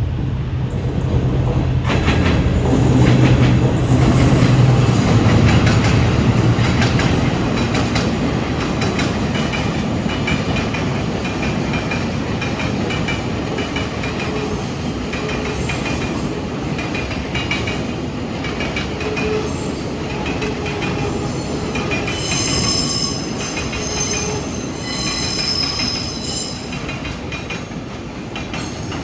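Freight train hauled by a Stadler R200-class diesel-electric locomotive passing close by. A low diesel hum is loudest over the first several seconds, then the wagons rumble past with repeated high-pitched wheel squeal through the second half.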